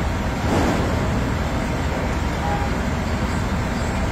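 Steady low rumble of busy city street traffic, with no single sound standing out.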